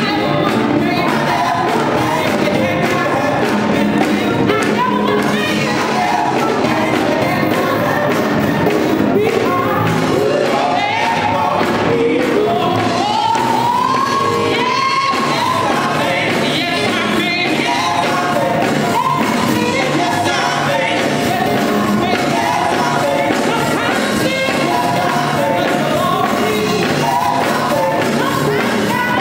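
Live gospel music: a group of women singing lead and harmony into microphones over electric bass, keyboard and drums, amplified through a PA.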